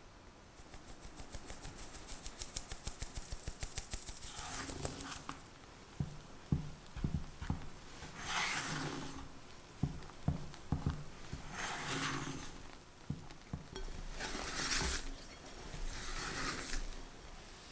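Flour mixture sifted through a stainless mesh strainer over a glass bowl: the strainer is shaken in rapid, even taps for about four seconds. Then a spatula folds the flour into the batter, with soft knocks against the glass bowl and four scraping sweeps.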